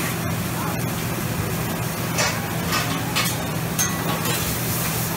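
Food sizzling on a large flat-top Mongolian barbecue griddle, with metal spatulas scraping and clinking against the steel a few times, over a steady low hum.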